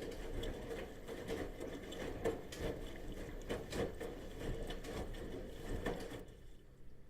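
Bosch washing machine in its wash cycle: the drum turning with laundry and water sloshing, with many small irregular knocks. The sound cuts off about six seconds in.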